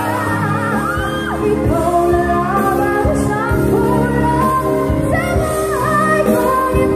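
A woman singing a pop song into a handheld microphone over accompanying music, both amplified through large PA speakers.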